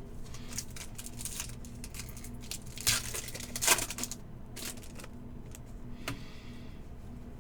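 Trading-card pack wrappers crinkling and tearing open, with cards rustling as they are handled; the loudest rips come about three to four seconds in. A steady low hum runs underneath.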